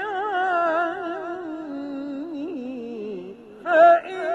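Male Quran reciter chanting in the melodic mujawwad style, holding a long ornamented vowel with a wavering pitch that winds down to a low note about three seconds in. A short, louder vocal burst follows near the end.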